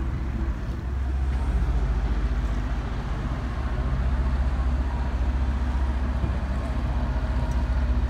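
Engine of a river cruise boat under way: a steady low drone over the rush of water along the hull.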